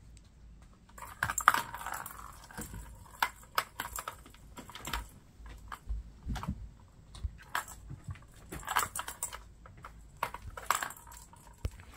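Irregular soft clicks and scratches of a kitten playing on an upholstered armchair, its claws catching on the fabric. A faint, steady low hum lies underneath.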